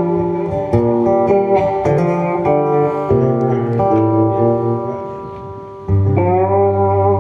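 Live Americana band playing an instrumental guitar passage without vocals, notes changing every half-second or so. About six seconds in, after a brief dip, a full chord is struck and left ringing.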